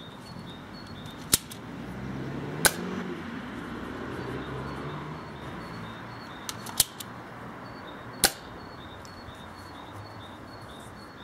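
Sharp plastic snaps and clicks from a small spring-powered Nerf Elite 2.0 Slyshot dart blaster being primed, loaded and fired, about five in all at irregular intervals, with the loudest near the start and about two-thirds through.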